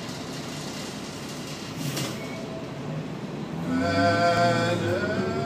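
Ride noise inside a Muni transit vehicle, with a click about two seconds in. From about three and a half seconds, a whine of several steady tones sets in and rises in pitch shortly before the end, as the vehicle picks up speed.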